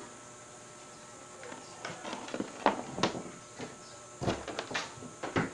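Hands handling an opened DVD player's circuit board and cable connectors: a few sharp clicks about halfway through, then a quick cluster of light knocks near the end.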